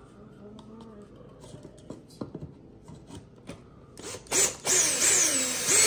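Cordless drill driving a screw into the joint of wooden hexagon shelf frames, its motor whining loudly with a pitch that wobbles up and down as the screw bites, starting about four seconds in. Before it come a few light clicks and knocks of wood and hardware being handled.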